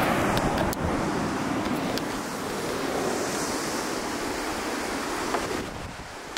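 Steady wash of surf and wind, with wind buffeting the microphone, a few light clicks in the first couple of seconds, and a vehicle door thudding shut at the very end.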